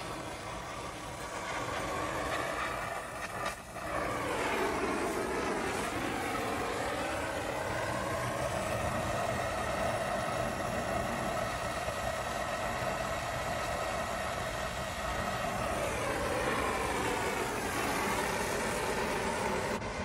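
Brazing torch burning with a steady hiss as a filter drier is brazed into the copper refrigerant line; the tone of the hiss wavers a few seconds in and again near the end.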